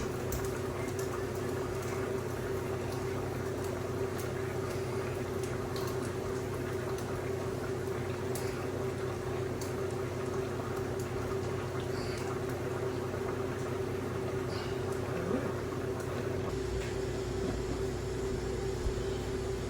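Steady machine hum with a constant mid-pitched tone over a low drone, and a few faint clicks scattered through it.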